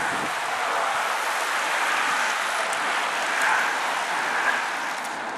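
A group of road bikes passing close by: a steady hiss of tyres on tarmac and whirring spoked wheels.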